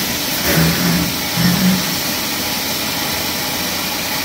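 Water jetting from a pressure sprayer wand onto an air-conditioner coil: a steady, loud hiss of spray that cuts off at the end.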